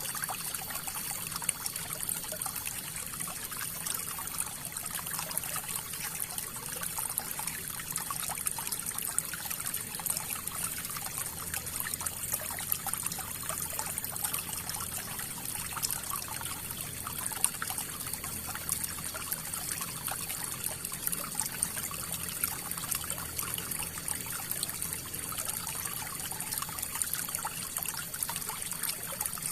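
River water flowing steadily over stones, a continuous babbling and trickling with small splashes.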